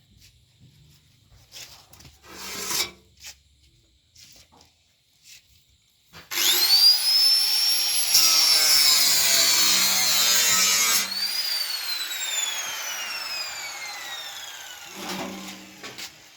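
A few light knocks, then an electric angle grinder spins up with a rising whine and grinds harshly for about five seconds. It is then switched off and its whine falls steadily as it winds down over several seconds.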